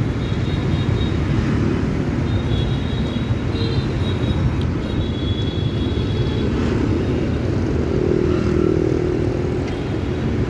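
Dense city motorbike traffic heard from a scooter in the stream: a steady mix of small motorcycle engines and road rumble, with cars passing close by.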